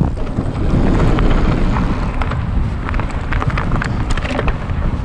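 Wind buffeting the camera microphone over the rumble of mountain bike tyres rolling fast on a dirt trail, with scattered clicks and rattles from the bike over the bumps.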